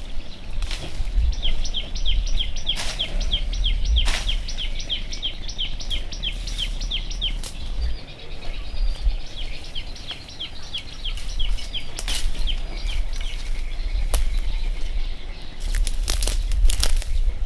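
Leaves rustling and twigs snapping as someone pushes through dense brush, with a cluster of sharp snaps near the end. A bird calls in two long runs of short, quick chirps, about three a second, over a low rumble.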